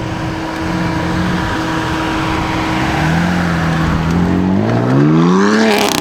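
BMW engine revving hard over a loud rushing noise. It holds steady revs, then climbs sharply in revs during the last second and a half, and cuts off abruptly.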